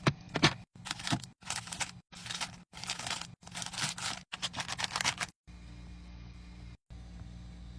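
Packaging and containers being handled in quick-cut clips: crinkling, scraping and sharp clicks. About five seconds in, this gives way to a steady low hum.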